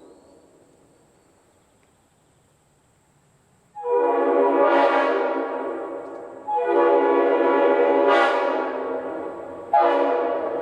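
Locomotive multi-chime air horn blown on compressed air in long blasts, each a chord of several tones that sets on sharply. Two blasts of about three seconds follow each other, and a third starts near the end.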